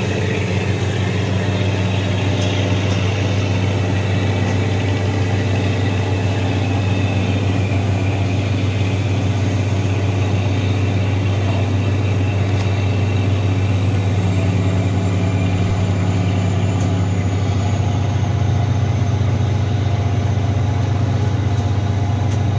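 A riverboat's diesel engine running steadily at cruising speed, a deep, even hum, over a constant hiss of water and wind.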